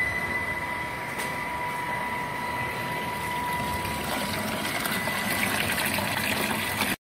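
The circulating pump of a portable membrane biogas digester running, with a steady high whine over the rush of slurry moving through its pipes. The rushing grows stronger in the second half, and the sound cuts off suddenly near the end.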